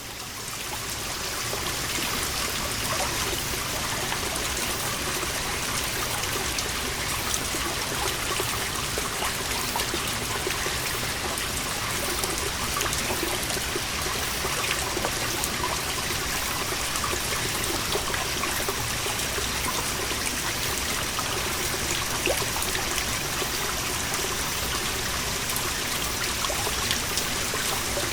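Water seeping through a moss-covered wall and falling as many small drops, each a short sharp tick, over a steady trickle. Cicadas sing steadily in the background. The sound fades in at the very start.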